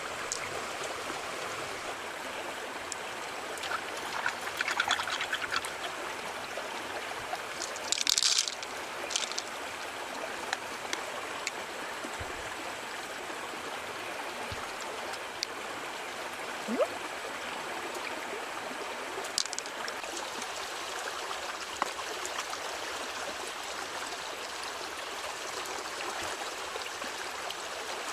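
Shallow stream running and trickling steadily over stones, with a few short handling noises from close by, the loudest about eight seconds in.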